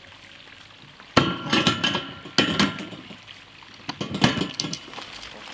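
Metal clanking and knocking as a metal drum's axle shafts are set into the brackets of a welded steel stand, in three bouts of knocks with a short ringing, starting about a second in.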